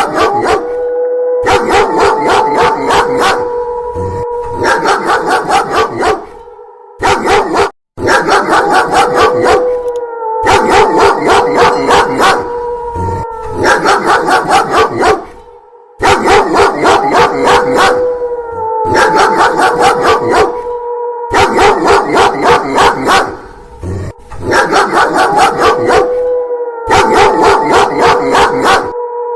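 Dog sound effect: rapid, loud barking with a long wolf howl laid over it, the howl rising, holding and falling. The mix repeats as a loop about every five to six seconds, with brief breaks between repeats.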